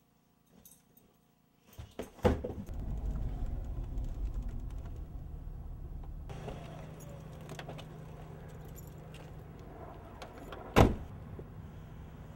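Faint light clicks, then two sharp knocks about two seconds in. These are followed by a steady low rumble with a hum, like a motor running, and one more sharp knock near the end.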